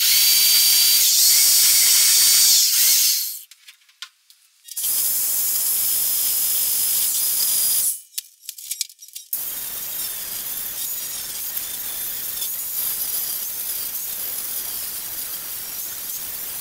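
A handheld power tool runs in two bursts of about three seconds each with a high whine, stopping briefly between them. From about nine seconds in, an angle grinder grinds steadily against the rusted sheet steel of a car's speaker tray.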